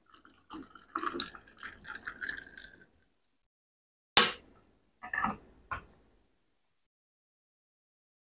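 Water pouring from a bottle into a glass mug packed with ice cubes for about two seconds. A little later comes one sharp, loud clink, then a couple of short gulps as the iced water is drunk.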